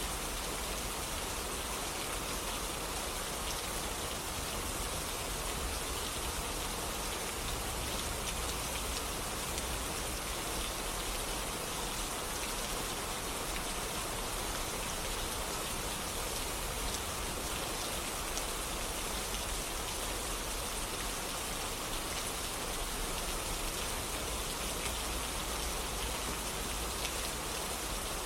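Steady rain falling, with fine drops pattering on surfaces.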